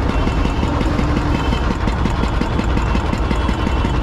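Small engine running steadily with a fast, even knocking beat, the motor driving a roadside sugarcane juice crushing machine.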